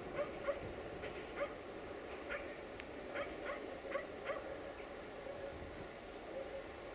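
A dog barking in short, sharp barks, about ten of them in ones and twos over the first four and a half seconds, then stopping, over the low steady rumble of a distant train.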